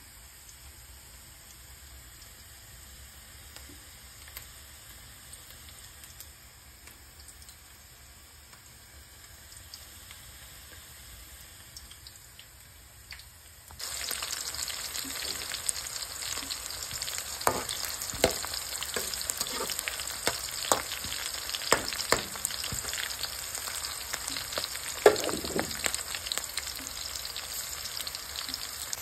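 Chopped onions frying in hot oil in a pan: a steady sizzle with frequent sharp crackling pops. It starts abruptly about halfway through, after a stretch of faint background hiss.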